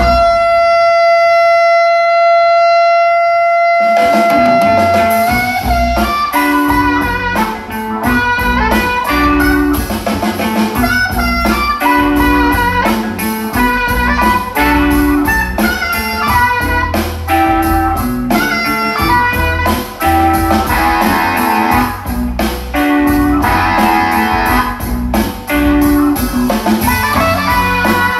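Instrumental music: a single long held note for about the first four seconds, then the full band comes in with a steady beat and a repeating bass line.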